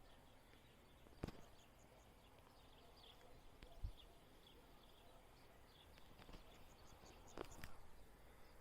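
Near silence: faint outdoor ambience with scattered faint high bird chirps now and then, and a few soft clicks and taps, one about a second in, one near the middle and a pair near the end.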